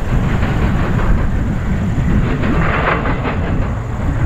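CSX freight train of diesel locomotives hauling double-stack container cars, passing with a steady low rumble and a scattered hiss of wheel and rail noise.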